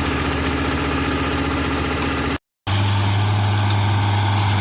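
Rice harvester's engine running steadily. It cuts out abruptly about two and a half seconds in for a split second of silence, then comes back with a deeper, more even hum.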